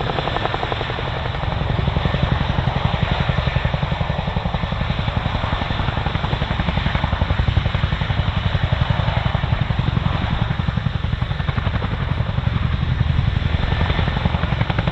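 Boeing Chinook tandem-rotor helicopter flying close by, its rotors making a fast, steady blade-slap pulse over the whine of its turbines. The sound grows louder about two seconds in.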